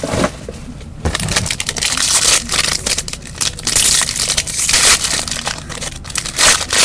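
The foil wrapper of a Panini Dominion hockey card pack being torn open and crumpled by hand: a dense crackling of foil that starts about a second in and goes on in uneven bursts.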